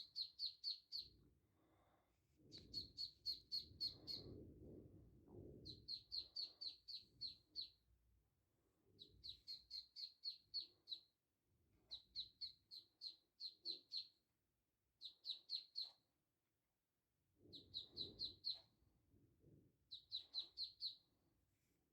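Three-day-old ducklings peeping: quick runs of high, clipped peeps, about six to eight a second, broken by short pauses. A soft low rustling comes in twice, once a few seconds in and again near the end.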